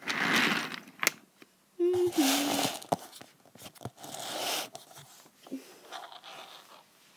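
Rustling and scraping as a hand pushes a die-cast toy train along plastic track, with a few sharp clicks. A short hummed voice sound, dropping in pitch, comes about two seconds in.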